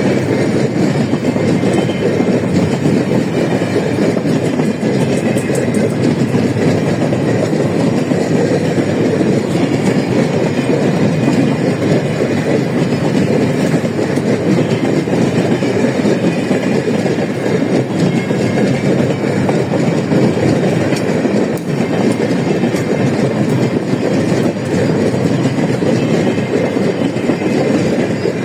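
Empty grain hopper cars of a long freight train rolling past, a steady clatter of steel wheels on the rails with no let-up.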